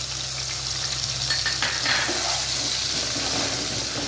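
Ground onion paste sizzling in hot oil in a frying pan, a steady hiss, with a few scrapes of a wooden spatula stirring it.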